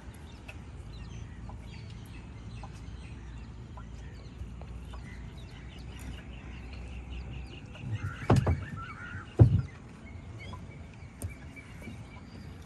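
Two sharp knocks about a second apart, some eight seconds in, as a net is handled in a small canoe. Faint bird calls sound in the background.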